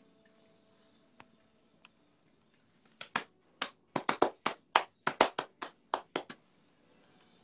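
One person clapping, about fifteen quick claps over some three seconds, starting about three seconds in; a few faint taps come before.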